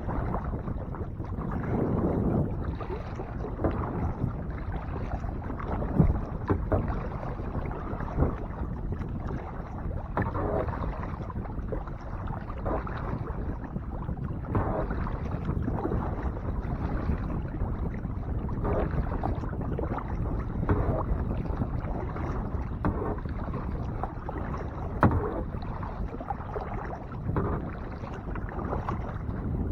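Kayak paddle strokes dipping and splashing in lake water, about one every one to two seconds, over a steady low noise.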